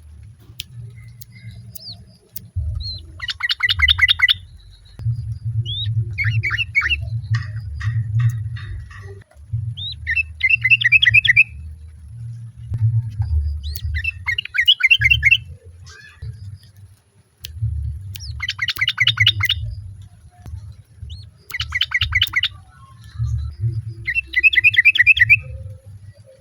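Yellow-vented bulbul calling: short bursts of rapid chattering notes, about a second each, repeated every few seconds, over a steady low rumble.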